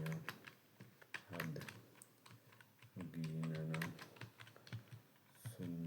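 Typing on a computer keyboard: quick, uneven key clicks. A low voice sounds briefly three or four times between them.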